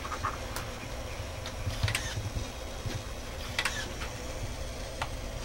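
A small wheeled robot's motors and gears working as it rocks its head and drives forward and back, giving irregular mechanical clicks and ticks over a low steady hum.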